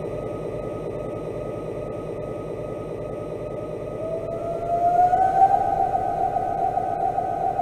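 Dark ambient instrumental music: a steady droning wash, with a sustained tone that slides upward about four seconds in and then holds.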